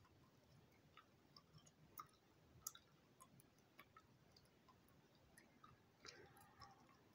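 Near silence: room tone with faint, irregular small clicks scattered throughout, and a faint soft rush about six seconds in.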